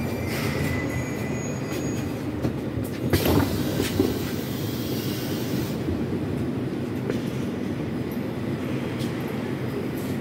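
Moscow Metro 81-740 articulated train braking into a station, wheels and motors rumbling with a faint high brake whine. About three seconds in there is a sharp clunk and a hiss lasting a couple of seconds, and then the steady hum of the train standing at the platform.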